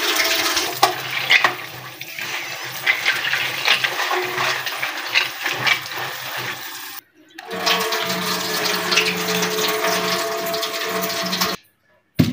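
Running water gushing and splashing into a vessel, with small clatters, as soaked kidney beans are rinsed. There is a brief break about seven seconds in; after it a steady low hum runs under the water until it stops sharply near the end.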